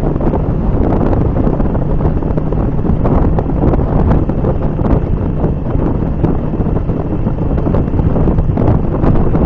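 Heavy wind buffeting the microphone of a camera on a moving motorcycle, with the motorcycle's engine running underneath.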